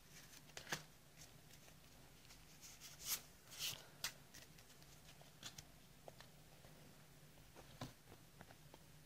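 Faint rustling and soft flicks of Pokémon trading cards being handled and slid out of a freshly opened booster pack: scattered light taps, with a short swish a few seconds in, over a faint low hum.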